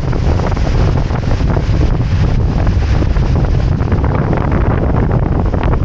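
Loud wind buffeting the microphone of a small action camera on a boat under way, over the rush of water and boat noise.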